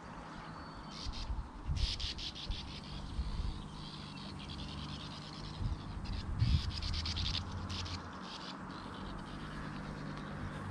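Sand martins chattering at their nesting colony in a sandy riverbank: a dense, raspy twitter of many birds. It runs from about a second in, thins out after about eight seconds, and sits over a low steady hum with a couple of low thumps.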